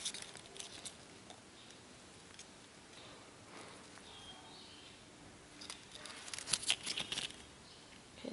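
Hands handling a sneaker and its paper hang tag: soft rustles and small crisp clicks, with a busier run of quick crinkly rustles about six to seven seconds in.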